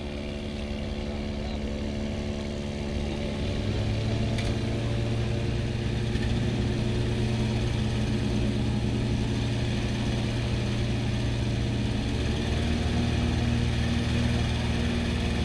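Petrol-engine inflation fan for a hot air balloon running steadily, ready to cold-inflate the envelope; its engine hum grows louder about three and a half seconds in and again near the end.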